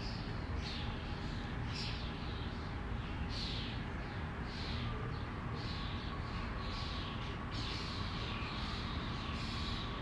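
Birds chirping repeatedly, short falling calls about once or twice a second, over a steady low rumble of outdoor background noise; a faint steady whine comes in about halfway.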